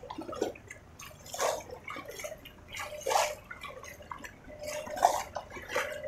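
Footsteps wading through shallow floodwater, a splash about every second and a half to two seconds.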